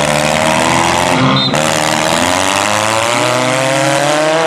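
Small demolition derby car engines revving hard; about a second and a half in, one engine's pitch drops and then climbs steadily as it is held on the throttle.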